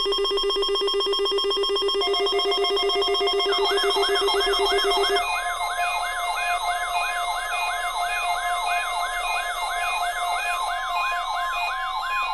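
Layered electronic siren and alarm tones. A rapidly pulsing low buzz and steady tones are joined a few seconds in by a wailing siren that sweeps up and down about twice a second. The low buzz cuts off about five seconds in, leaving the wail and a steady high beeping.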